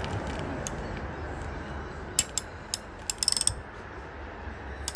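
Hand ratchet wrench clicking as the crankshaft of a torn-down Subaru 2.5 engine is turned by hand: a few separate clicks, then a quick run of clicks about three seconds in. A steady low hum runs underneath.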